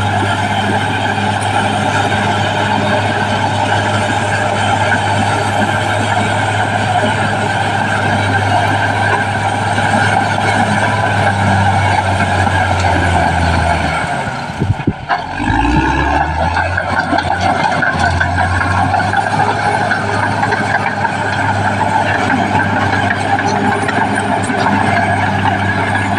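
Caterpillar D6R XL bulldozer's diesel engine running steadily and loud under work. About halfway through the sound dips for a moment and the engine note drops low, then climbs back up to its working pitch.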